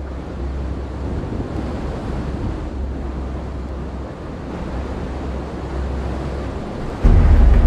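Wind rushing over the microphone, with a steady low rumble. About seven seconds in, a much louder deep sound cuts in suddenly.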